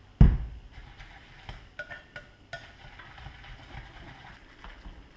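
A heavy thump as a salt canister is set down on the countertop, then chopsticks stirring minced pork-and-chive filling in a glass bowl, with a string of light clicks and short ringing clinks against the glass.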